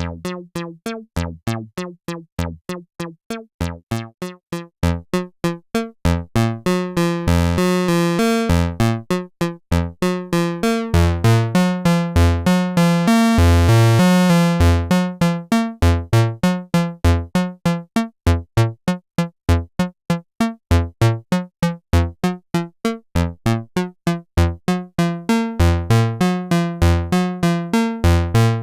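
Behringer CRAVE semi-modular analog synthesizer playing dry, with no effects: a fast repeating sequence of short bass notes, about four a second. The tone grows much brighter around the middle as its ladder filter opens, then closes down again.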